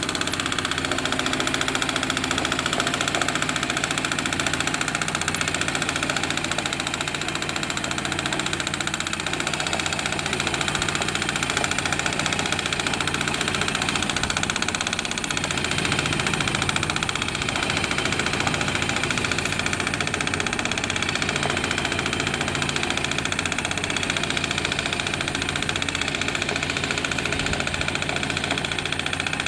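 Two-wheel hand tractor's engine running steadily while plowing wet paddy mud.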